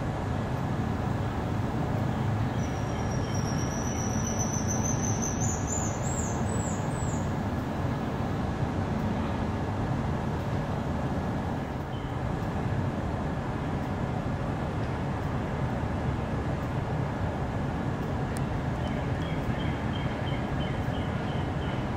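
A steady low rumble of background noise, with a short run of high rising chirps about three seconds in and faint rapid ticking near the end.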